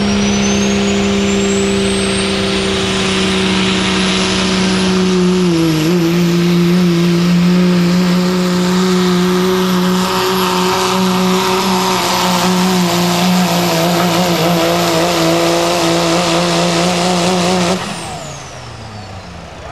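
Turbocharged Cummins diesel in a Dodge Ram pickup at full throttle, pulling a sled. A turbo whistle climbs over the first few seconds and the engine runs at a steady high pitch, dropping slightly about six seconds in. Near the end the throttle is cut, the engine note falls, and the turbo whine winds down.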